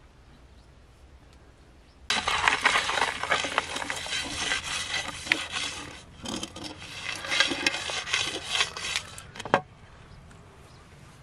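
Gravel and small stones scraped and stirred by hand in a shallow metal pan: a dense rattling scrape full of sharp clicks, starting about two seconds in and stopping with a single sharp click about a second and a half before the end.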